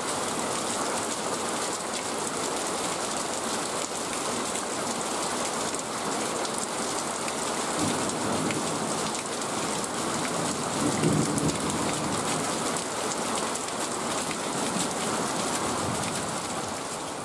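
Steady rain falling on wet ground and puddles, with shovels scraping and tipping wet sand into a pickup's steel bed, loudest about eight and eleven seconds in.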